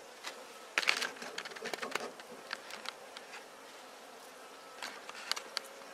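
Honeybees buzzing on the exposed comb of an open-air colony, a faint steady hum. Scattered light clicks and rustles, the strongest about a second in and again near the end.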